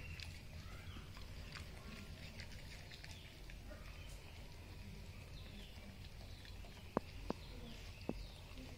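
Golden retriever eating soft bread from a ceramic bowl: quiet chewing and mouthing, with a few sharp clicks near the end.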